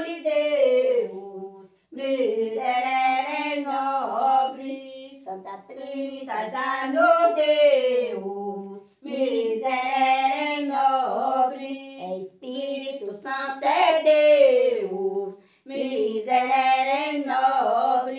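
A woman singing unaccompanied: a Catholic folk devotional hymn (bendito), sung in phrases of about three to four seconds with short breaths between, its notes sliding at the ends of the lines.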